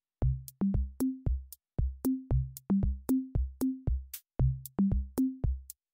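Electronic music with a drum-machine beat and a short rising bass figure repeated over and over. It starts abruptly out of silence just after the start.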